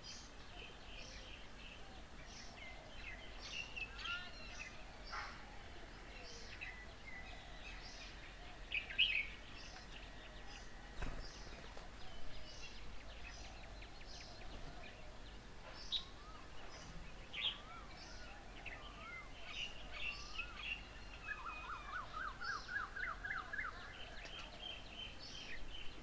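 Several wild birds chirping and calling, with short notes scattered throughout. Near the end, a run of about a dozen quick rising notes.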